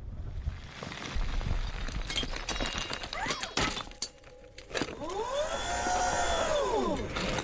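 Film battle sound effects: a low rumble fades as debris and rubble clatter and knock down around the fallen armoured suit, followed by a whirring tone that rises and falls.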